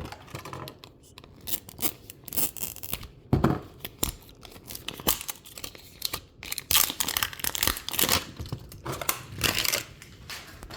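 Plastic wrapping on a Mini Brands capsule being torn and crinkled by hand, in irregular bursts of rustling, with a dull knock about three and a half seconds in.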